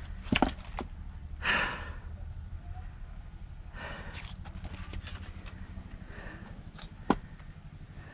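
Wood splitting by hand: sharp knocks of wood, the loudest a pair about half a second in and a single one near the end, with heavy exhaled breaths between them. A steady low hum runs underneath.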